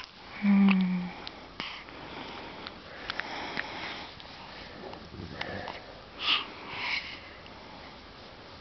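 Newborn baby sniffing and breathing noisily through its nose, with a short low voiced sound about half a second in and two louder sniffs near the end.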